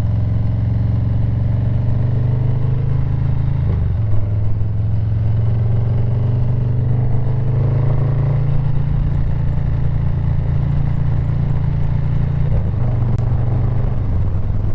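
Harley-Davidson Low Rider S V-twin running through an SP Concepts Big Bore 4.5 aftermarket exhaust while riding, a loud, steady low exhaust note. The note breaks briefly about four seconds in and shifts again near the end.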